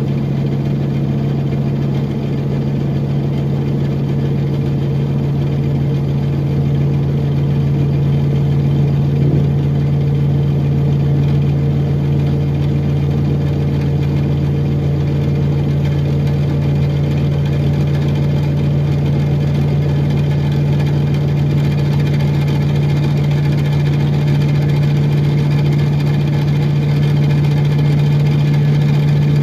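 Interior drone of a 2006 Orion VII first-generation diesel-electric hybrid transit bus, a steady low hum with no rise or fall in pitch, growing slightly louder near the end.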